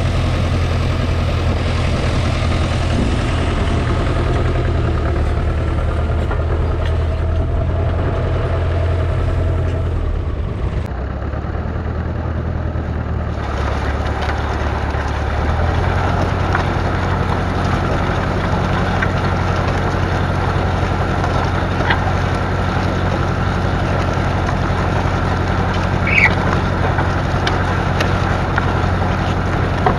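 The McCormick 434's 2.5-litre four-cylinder diesel engine running steadily. Its note shifts and dips slightly for a few seconds about eleven seconds in, then settles back.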